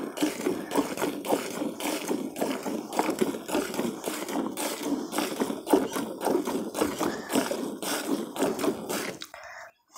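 Milk squirting into a pail in a quick, steady rhythm of short hissing spurts as a cow is milked by hand. The spurts stop abruptly about nine seconds in.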